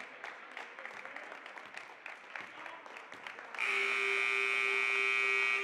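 Basketball scoreboard buzzer sounding one loud, steady buzz that starts about three and a half seconds in and lasts about two seconds. Before it, irregular short knocks of play on a gym court.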